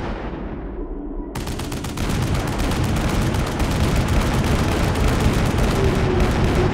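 Cartoon sound effect of rapid machine-gun fire. It starts about a second and a half in and keeps going as a fast, continuous rattle of shots over a low rumble.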